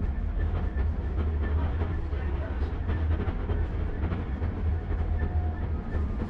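Tram running along street track: a steady low rumble of the wheels and running gear, with many short irregular clicks as the wheels pass over rail joints and track work.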